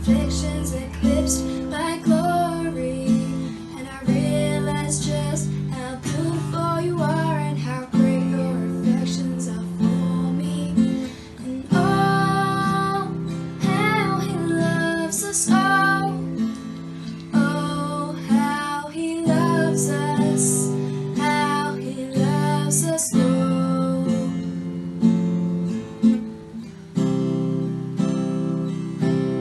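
Worship song: a woman singing over a strummed acoustic guitar.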